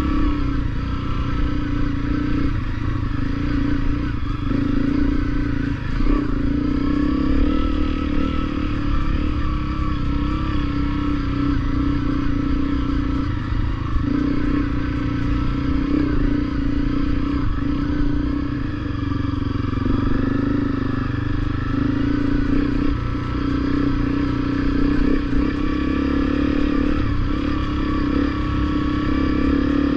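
Honda CRF250L's single-cylinder engine running steadily under load, its note dropping briefly several times and picking up again.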